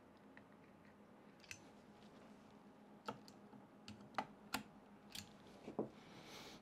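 Scattered light clicks and taps of hand tools and small screws being handled on a 3D printer's frame, about eight in all, with a brief rustle near the end.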